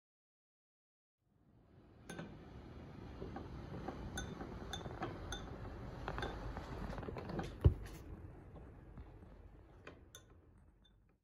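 A metal spoon stirring soup in a glass bowl, clinking against the glass several times, with one sharper knock about seven and a half seconds in.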